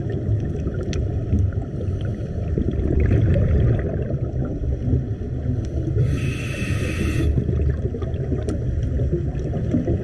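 Underwater sound recorded by a dive camera: a steady low rumble of water and diver's bubbles, with scattered sharp clicks throughout. About six seconds in there is a hiss lasting just over a second, typical of a scuba regulator on an inhale.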